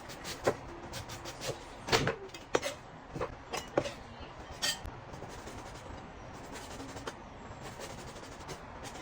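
Kitchen clatter: dishes and utensils being set down and handled, a string of separate sharp knocks and clinks. They come thickest in the first four seconds and grow sparser after.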